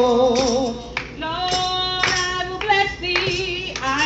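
A woman singing a gospel praise chorus into a microphone, holding the word "Lord" with a wavering vibrato before the singing goes on in further sustained notes, with hand clapping along.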